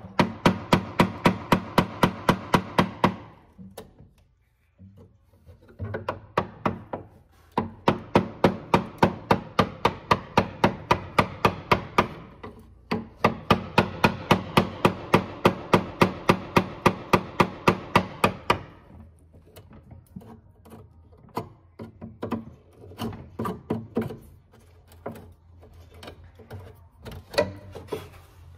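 Wood chisel working a groove into a wooden drawer runner: three long runs of rapid, even clicking, about five a second, then softer, irregular scraping and tapping near the end.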